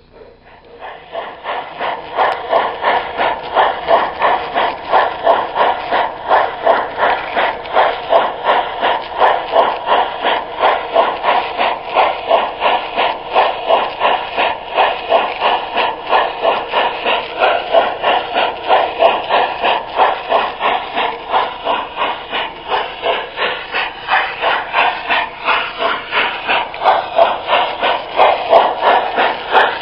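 Garden-scale model train running on the track, with an even, rapid chuff-and-hiss rhythm typical of a steam locomotive sound unit. The rhythm builds up about a second in and then holds steady.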